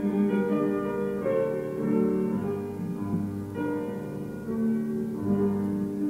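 Piano accompaniment playing slow, steady chords of a hymn after the singing has stopped, with a new chord about every second.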